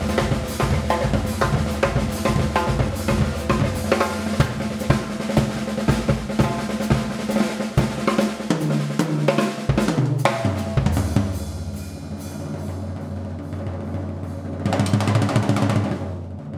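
Pearl drum kit played in a fast solo: rapid snare, bass drum and tom strikes for about the first ten seconds, then thinning to sparser hits over a low ringing tone, with a cymbal swell near the end.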